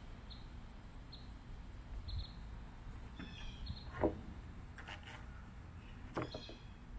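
Wooden knocks as a pressure-treated sill plate board is handled and set on a concrete pier: a sharp knock about four seconds in and a smaller one near six seconds. A bird chirps short high notes about once a second over a steady outdoor background.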